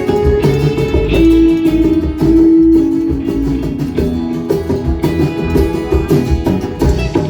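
A live band plays an instrumental passage with no singing. A guitar holds long, sliding notes over bass and drums.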